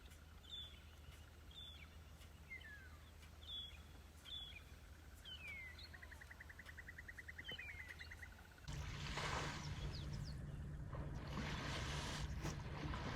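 Birds calling outdoors: short downslurred whistles repeated about once a second, a few longer sliding calls and a rapid even trill, over a low hum. About nine seconds in this gives way abruptly to a louder rushing, splashing noise of water over a steady low hum.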